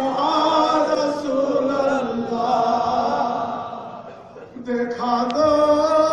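Unaccompanied devotional chanting in long, drawn-out notes with ornamented, wavering pitch; the line fades out about four seconds in and starts again a moment later.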